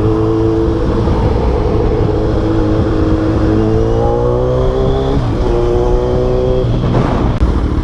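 Kawasaki Z1000's inline-four engine through a newly fitted full exhaust system, holding steady and then pulling up through the revs. Its pitch breaks briefly about five seconds in before climbing again.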